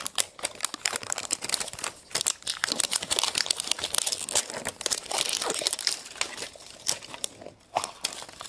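A surprise egg's wrapper being unwrapped by hand: a dense run of crinkling and crackling that thins out near the end.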